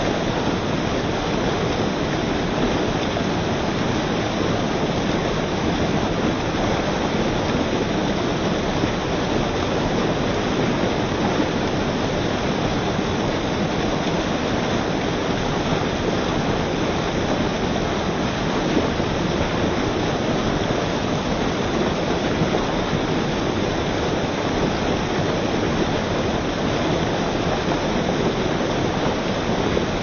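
White water from a mill stream tumbling and splashing over rocks in a steady, unbroken rush.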